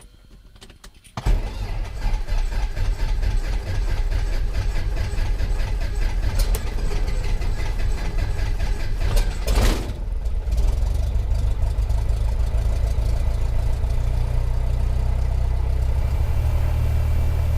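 Cessna 172's piston engine starting about a second in, then running at a steady idle.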